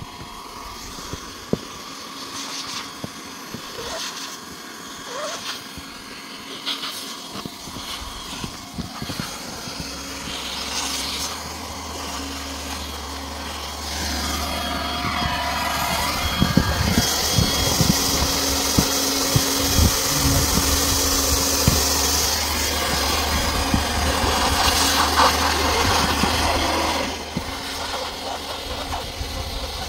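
Handheld hot-air welding gun blowing as it melts and seals a geomembrane liner patch around a pipe, a steady fan hum with air hiss. The hum comes in about ten seconds in, grows louder a few seconds later, and drops sharply near the end, with scattered knocks from the seam roller pressing the hot seam.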